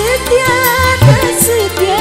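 A woman singing a dangdut song live with a band, her voice wavering through ornamented notes over a drum beat with a low thump about twice a second and cymbal strokes.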